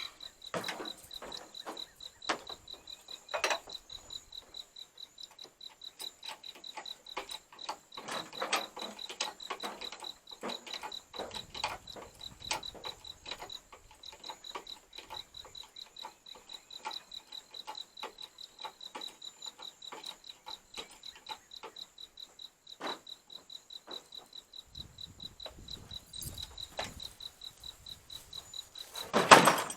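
Crickets chirping steadily throughout, under irregular clicks and metal knocks from jacking and fitting work on the crane, with a loud clank just before the end.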